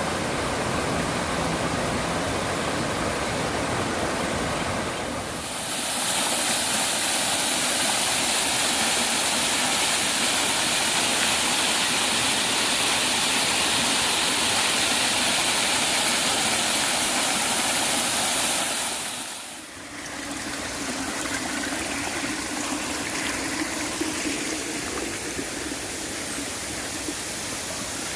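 Mountain stream and waterfall water rushing over rocks, a steady even rush. About six seconds in it turns to a louder, hissier rush, and about twenty seconds in it drops back to a softer flow.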